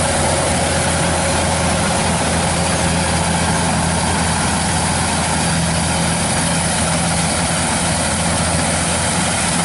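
Kubota DC-105X rice combine harvester running steadily at working speed, its diesel engine and threshing machinery making a loud, even drone with no changes.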